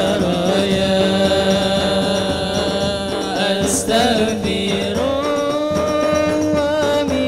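A male lead singer chanting an Arabic sholawat melody through a PA system in long, wavering held notes, moving up to a higher pitch about five seconds in. A hadroh ensemble of frame drums and bass drums backs him.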